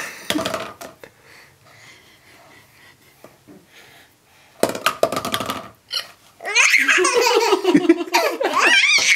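Baby laughing: a short burst of laughter about five seconds in, then a long run of high-pitched belly laughs through the second half.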